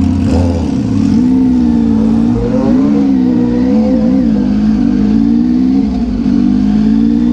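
Motorcycle engine running while riding, its note wavering up and down with the throttle, over steady wind rush on the microphone.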